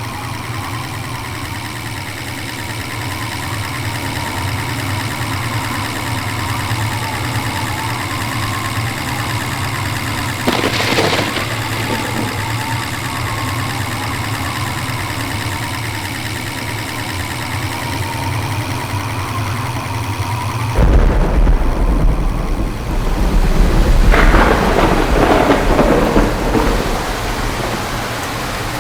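Rain in a thunderstorm over a steady low engine hum, with a short sharp crack about eleven seconds in. About two-thirds of the way through, a sudden loud, low rumble of thunder sets in, and the rain then grows louder.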